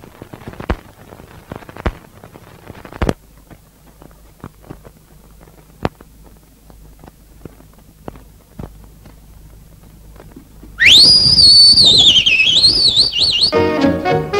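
Worn old film soundtrack crackle, with scattered clicks and pops, then about 11 s in a loud, high whistle that sweeps up quickly and warbles up and down for about two and a half seconds. Music starts near the end.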